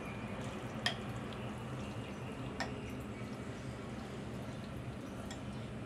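Metal fork and spoon clinking against a ceramic bowl, with two sharp clinks about a second in and again midway. Soft wet sounds of noodles being lifted from broth run over a steady low hum.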